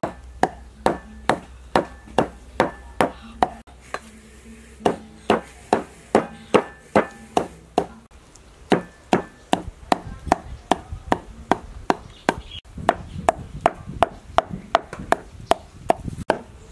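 Cleaver chopping fish paste on a thick round wooden chopping block: a steady run of sharp knocks, about two to three a second, with a brief pause about four seconds in.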